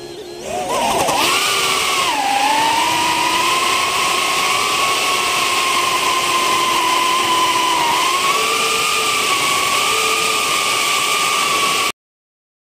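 A small cinewhoop FPV quadcopter's four 1106 4500kv brushless motors and 2.5-inch ducted props whining, heard through the onboard camera's microphone. The pitch climbs as it takes off, dips briefly about two seconds in, then holds steady with small wavers. It cuts off suddenly near the end.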